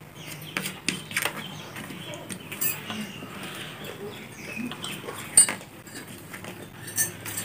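Eating sounds: fingers working rice on plates, chewing, and scattered small clicks of plates and tableware, the sharpest about five seconds in.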